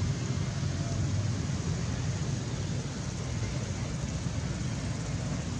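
Steady low background rumble with a faint hiss, with no distinct events standing out.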